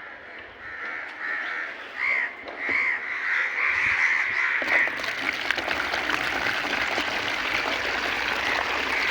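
Crows cawing, a quick run of short repeated calls, then a steady hiss with scattered clicks from about five seconds in.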